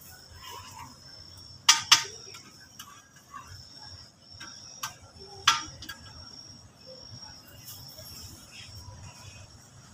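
Sharp clicks or clacks, two close together about two seconds in and two more around five seconds, over a steady high-pitched chirring like insects.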